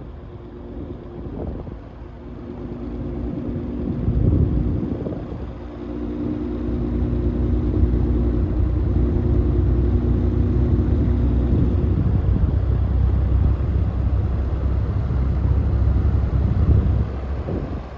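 Vintage General Electric box fan running: a steady motor hum under a low rush of air buffeting the microphone, which grows stronger about a third of the way through while the hum drops away later on.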